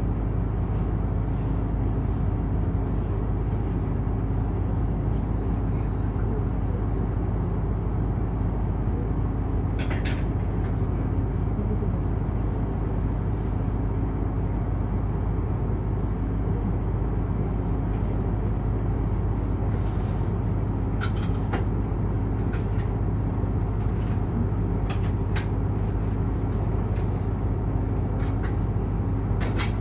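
Excursion boat's engine running steadily, a constant low hum, with a few faint clicks here and there.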